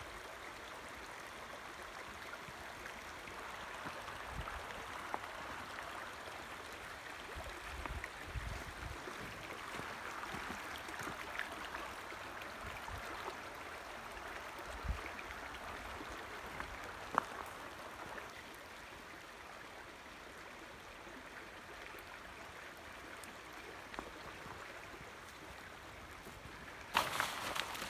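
Shallow creek rushing steadily over rocks, a little fainter about two-thirds in. Near the end, a cluster of louder sharp knocks and crackles.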